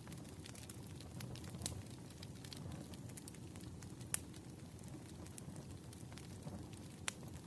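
Wood fire burning with a low steady rumble, scattered crackles and sharp pops, the loudest about four seconds in and another near the end.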